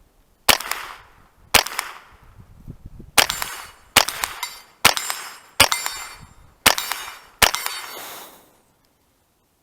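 Eight shots from a Ruger 10/22 takedown .22 LR rifle, fired one at a time roughly a second apart, with the sharp crack of each shot followed by the ring of a hit steel target.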